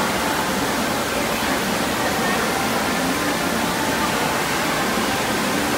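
Water pouring steadily from a water-park cascade into a pool, a constant rushing.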